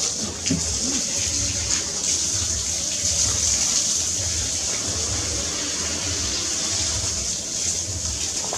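Steady rushing noise with a low rumble underneath, even in level throughout.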